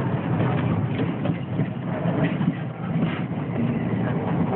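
Vintage electric streetcar running along the track, heard from inside the car: a steady low noise of its motors and its wheels on the rails.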